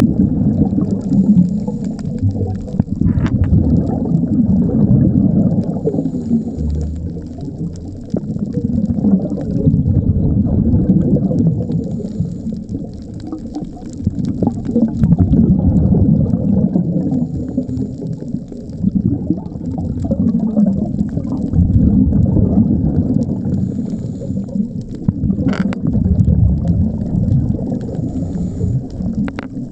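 Scuba diver's regulator breathing underwater: rumbling exhaust bubbles swell and fade every five or six seconds, with a faint hiss of inhalation recurring between them.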